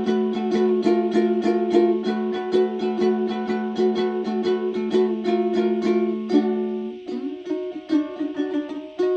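Plucked string instrument played in quick picked notes, about five or six a second, over a held low note. About two-thirds of the way in, the low note stops, the playing thins and quietens, and one note slides upward. The full picking returns near the end.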